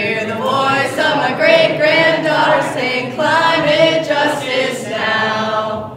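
A room of people singing a protest chant-song together in unison with no instruments. The singing stops just before the end.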